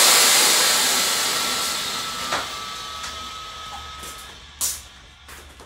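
Pressurised refrigerant blowing out of the Nissan Altima's still-charged A/C system at the damaged condenser: a loud hiss that fades steadily, with a faint whistle on it in the middle. A few clicks and one louder knock come near the end.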